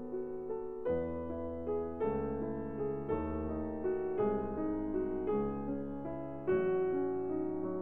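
Background piano music, with a new chord struck about once a second.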